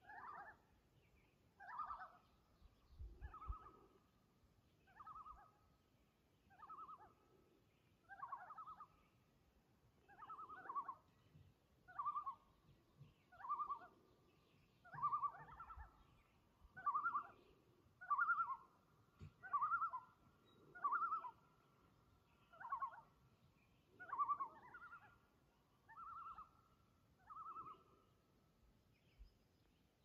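Common loon calling across open water: a long series of short phrases, each wavering between two pitches, repeated about every one and a half seconds, building louder toward the middle and then fading.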